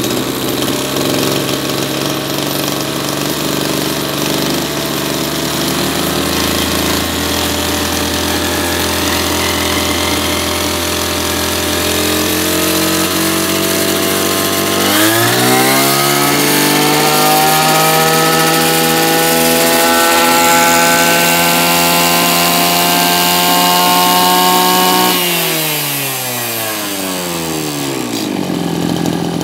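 Maruyama BIGM KC26 26cc two-stroke brush cutter engine idling, then throttled up about halfway through to a high, steady full-rev whine. It holds there for about ten seconds before dropping back to idle near the end.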